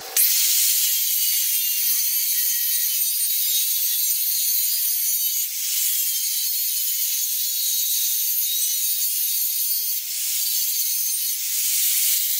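Angle grinder with a cut-off disc cutting into thick steel plate: a steady, loud, high hiss that starts abruptly, with a couple of brief dips as the disc eases off. It is cutting a shallow marking groove along the weld line.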